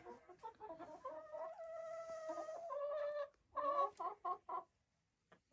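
A flock of hens clucking: one drawn-out call of about two seconds, then four short clucks in quick succession.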